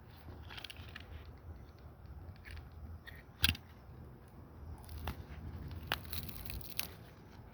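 Plastic grafting tape being cut and peeled off a grafted fruit-tree branch: a crackling rustle broken by a few sharp snips or clicks, the loudest about three and a half seconds in.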